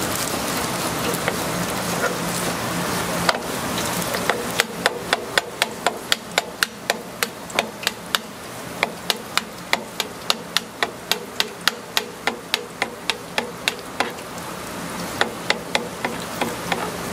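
A flat blade tapping and pressing on a plastic cutting board while fish-cake paste is shaped around a skewer: a fast, even run of sharp clicks, about three or four a second. The clicks pause and then come again a few times near the end. A deep fryer's steady sizzling hiss is heard in the background at the start and end.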